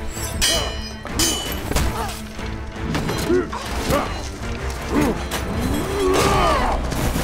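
Sword fight with film score music. There are two ringing metal clashes of blades in the first second and a half, then blows and thuds mixed with short pitched cries of effort, and a longer cry about six seconds in.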